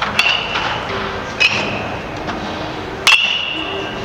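Baseball bat hitting pitched balls in batting practice: three sharp, ringing pings over a second apart, the one about three seconds in the loudest.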